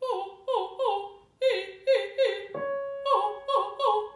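A woman's trained voice sings a light vocal warm-up: short notes in quick groups of three, each sliding down in pitch. From about halfway a single piano note is held underneath.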